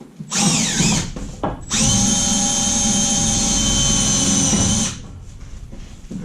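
Cordless drill driving screws into a wall panel: a short burst about half a second in, then a steady run of about three seconds that stops abruptly.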